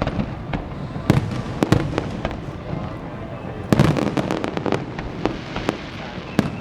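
Fireworks display: shells bursting in a quick, irregular series of sharp bangs over a continuous rumble, with a dense cluster of bangs about four seconds in.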